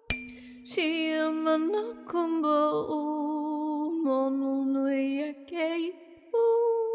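A tuning fork is struck just after the start and rings a single steady low tone for about five seconds. Over it a woman sings a wordless healing chant in long held notes that waver, with a few short breaks.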